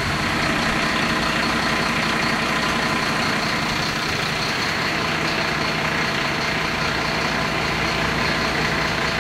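Fire engine's diesel engine idling steadily, with an even hiss over it.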